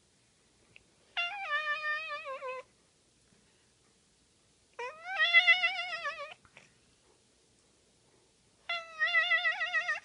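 Domestic cat giving three long meows, each about a second and a half, its pitch wobbling rapidly up and down as it is shaken mid-meow, which turns the meow into a warbling, sing-song sound.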